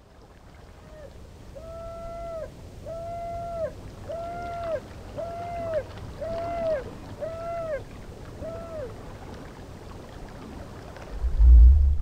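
Underwater-themed intro sound effects: a low rumble swelling in level under a run of about eight hooting calls, each held and then dropping off at the end, roughly one a second. A deep boom hits near the end.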